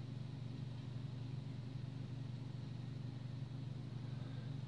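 Room tone: a steady low hum with faint hiss, unchanging throughout.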